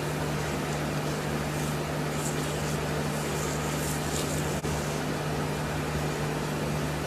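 A steady low hum over a noise haze, with faint soft crackling through the middle.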